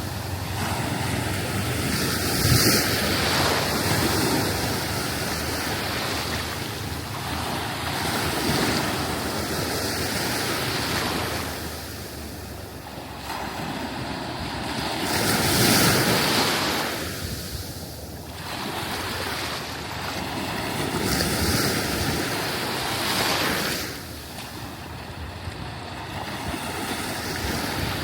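Sea waves washing onto a sandy beach, swelling and breaking about every six seconds.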